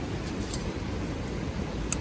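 Wood fire crackling: two sharp pops, a faint one about half a second in and a louder one near the end, over a low steady rumble.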